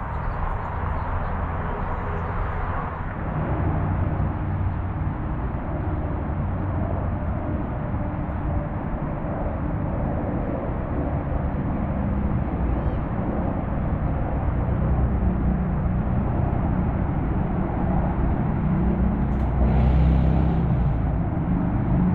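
Steady low outdoor rumble with no clear single source, swelling briefly near the end.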